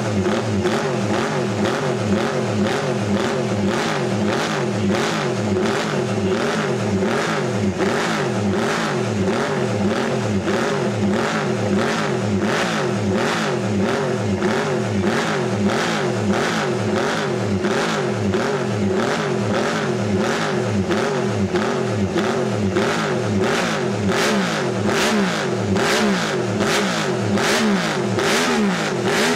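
MV Agusta three-cylinder four-stroke racing motorcycle engine being warmed up while standing still, blipped on the throttle over and over so the revs rise and fall in quick, regular pulses without a pause.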